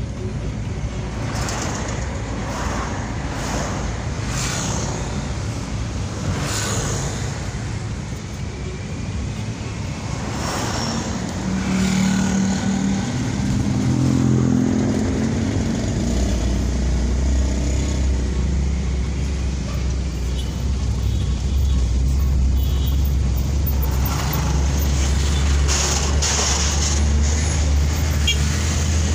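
Road and traffic noise heard from inside a small car (Daihatsu Ayla) driving in a stream of motorcycles and trucks: a steady rumble with swells as vehicles go by. A deep hum comes in about halfway through and holds.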